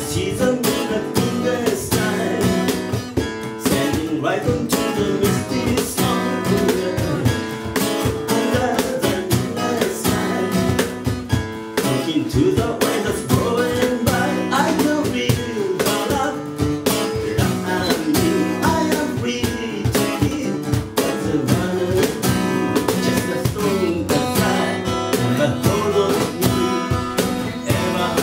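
Live acoustic music: a steel-string acoustic guitar strummed in a steady rhythm, with a cajón keeping the beat and a man singing over it.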